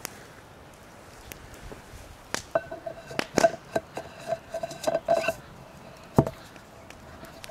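A black metal camping mug with a wire handle being handled on a wooden plank: a quick run of metallic clicks and clinks sets it ringing with a steady tone, then a single knock a little after six seconds in.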